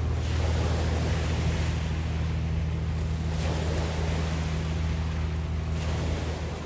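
A boat engine running at a steady low hum, mixed with wind rushing over the microphone, which swells a couple of times.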